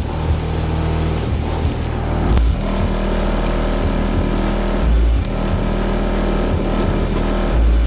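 Bass-heavy music from a car's pair of Earthquake DBXI12D 12-inch subwoofers, heard from outside the car, with a deep bass hit about every two and a half seconds over a steady low drone.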